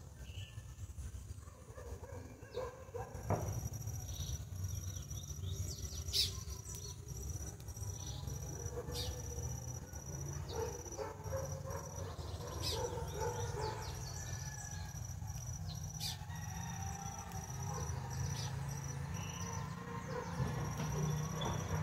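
Garden ambience: a steady, high-pitched insect trill throughout, with scattered short bird chirps and a low rumble underneath.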